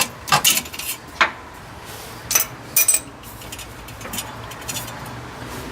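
Irregular metallic clinks and clicks of hand tools working the clamp that holds the fuel filter, loudest and most frequent in the first three seconds, then sparser.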